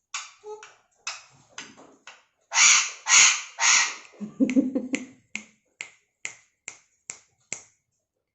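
Alexandrine parakeet screeching: a string of harsh squawks, the loudest three close together about two and a half seconds in, followed by a run of short sharp calls at about two a second.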